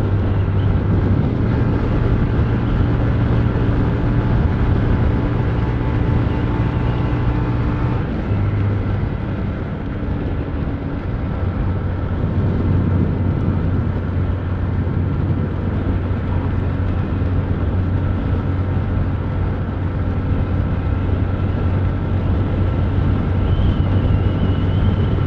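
Honda motorcycle engine running steadily at highway cruising speed, with wind rushing over the microphone. About eight seconds in the engine note shifts and briefly eases, then holds steady again.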